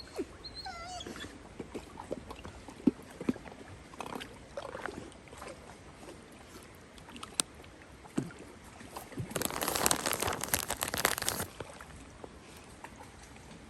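A Dalmatian gives a short whine near the start. About nine seconds in comes a couple of seconds of loud splashing water as the dog swims.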